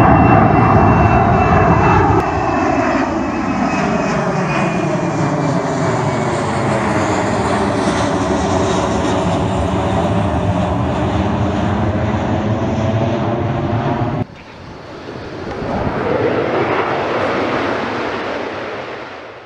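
Jet engines of a Ryanair Boeing 737-800 airliner climbing away overhead after takeoff: a steady, loud jet roar with a high whine that slowly falls in pitch. About 14 seconds in the roar cuts off abruptly, replaced by a quieter rush that swells and then fades out.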